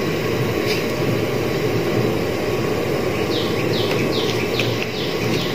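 Steady rushing background noise, with a small bird chirping a quick run of about six short falling chirps over the last two seconds.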